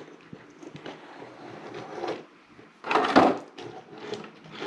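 Plastic parts of a Transformers action figure being handled and moved: small clicks and rubbing, with one louder knock and rattle about three seconds in.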